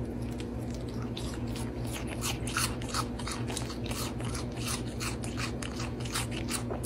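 Goat kid crunching and chewing a crunchy piece of hand-fed food: a quick, irregular run of crisp crunches, over a low steady hum.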